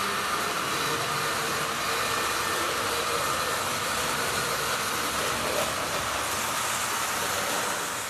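HO-scale model train running close by: the steady whir of its electric motor and the rolling of its wheels on the rails, dropping away at the very end as it moves off.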